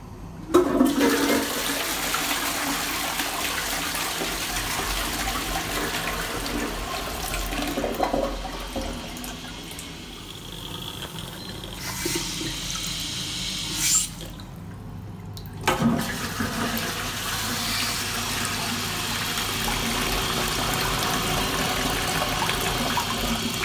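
Armitage Shanks close-coupled toilet being flushed: a sudden rush of water about half a second in, then a steady rushing hiss as the cistern refills through its float-arm fill valve. The water noise stops briefly near 14 s and starts again sharply about a second and a half later.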